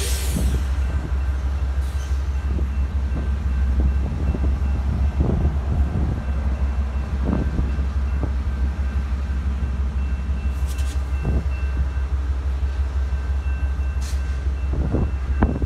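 Amtrak passenger train standing at a station with its diesel locomotives idling: a steady low rumble, with a few brief hisses.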